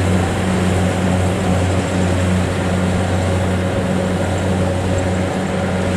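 Kubota DC70 rice combine harvester's diesel engine running steadily with a low, even hum as the machine crawls on its tracks through soft mud.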